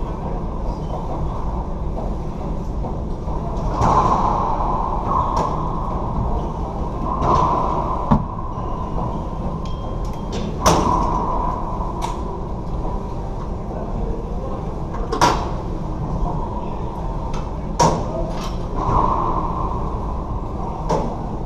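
A racquetball rally: the ball is struck by racquets and smacks off the court walls and floor, giving about ten sharp, irregularly spaced hits over a steady background hum.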